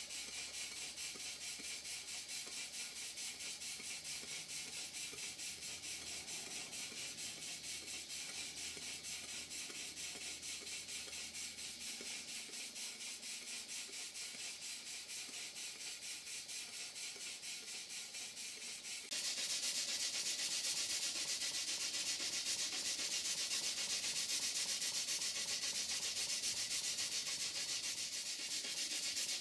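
Vintage workshop-type single-cylinder horizontal steam engine running sweetly on live steam, its exhaust giving a steady, fast, rhythmic chuffing hiss. About two-thirds of the way through the sound becomes louder and brighter.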